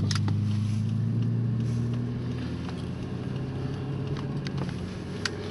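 Car engine and road noise heard from inside the cabin while driving. The engine note holds steady and slowly eases off, with a few sharp clicks at the start and near the end.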